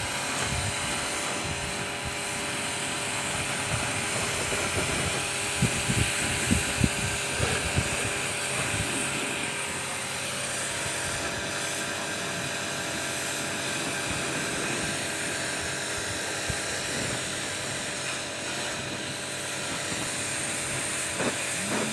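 A motor-driven pressure sprayer's pump running steadily, with the hiss of spray from the wand. A few low bumps come about six to seven seconds in.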